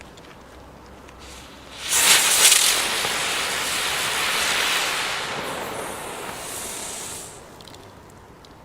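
Old 1997 'spinning nipple' spinner firework burning: a sudden loud hiss about two seconds in that holds steady for several seconds, then fades out.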